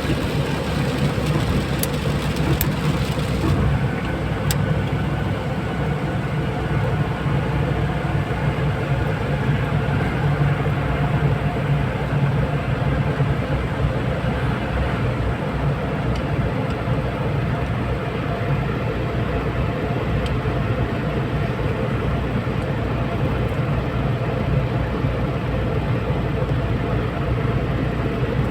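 Steady engine and road noise of a car driving along a motorway, with a hiss in the upper range that drops away about three and a half seconds in.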